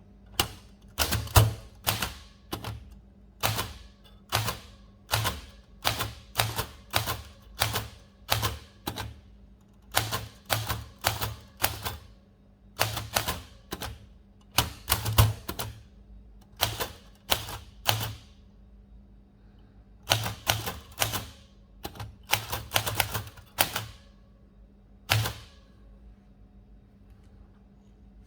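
1938 Remington Junior portable typewriter being typed on: single keystrokes, each typebar striking the platen with a sharp clack, at an uneven pace of about one or two a second with a few short pauses. The typing stops a few seconds before the end.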